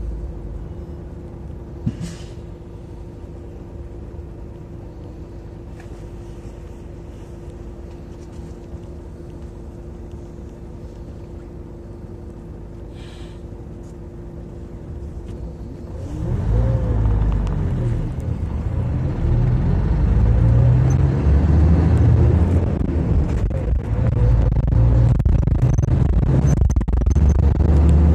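City bus engine idling steadily, heard from inside the bus, then about halfway through it revs up as the bus pulls away, its note rising and falling as it gathers speed over a loud low rumble.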